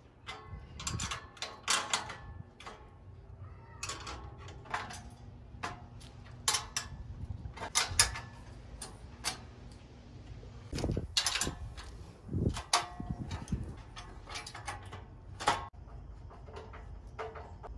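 Irregular metallic clicks, clinks and knocks of a hand tool tightening bolts and nuts on a steel welding table's frame, the loudest knock about eight seconds in.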